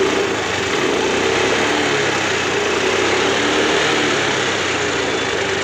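Honda Grazia 125 scooter's single-cylinder engine running steadily after starting on the self-starter. The self-start fault is cured by cleaning the flywheel magneto and setting the pickup coil slightly closer to the magnet.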